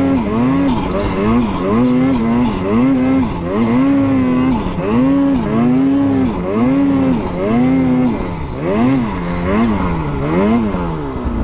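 Snowmobile engine revving up and down over and over, about every three-quarters of a second, as the throttle is worked to keep the sled moving through deep powder.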